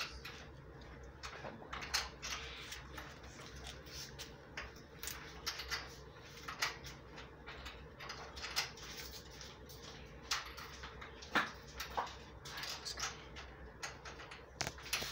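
Irregular small clicks and knocks of bolts, nuts and washers being handled and threaded by hand while a bench vise is bolted down, over a faint steady hum.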